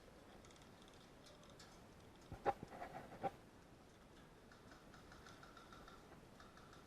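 A few sharp clicks and knocks in a quick, uneven cluster between two and a half and three and a half seconds in, over faint background noise.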